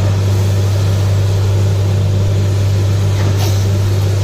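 Truck-mounted borewell drilling rig running steadily with a loud, deep drone while water is blown out of the borehole, the sign that the bore has struck water. A short hiss comes about three seconds in.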